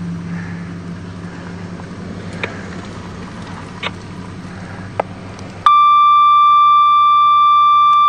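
Low steady hum of an idling vehicle engine, with a few faint clicks. About five and a half seconds in, a loud, steady, high-pitched emergency-radio dispatch alert tone starts abruptly and holds.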